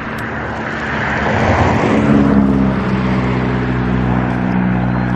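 An engine running, growing louder over the first two seconds and then holding a steady hum.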